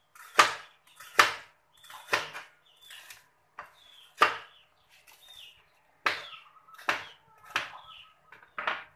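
Kitchen knife slicing bitter gourd on a plastic cutting board, the blade striking the board in sharp chops about once a second, with a short pause around five seconds in.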